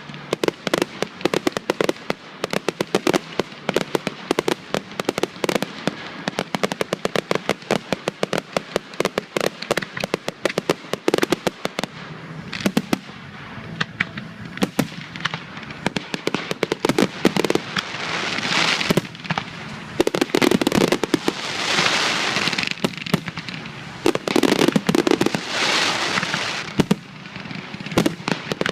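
Fireworks display: dense rapid crackling reports throughout, with several louder swells of hissing crackle in the second half.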